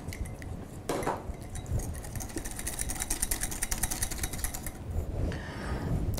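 Wire whisk beating egg yolks and sugar in a glass bowl, its wires clicking against the glass in a quick, even rhythm, with a short pause near the end.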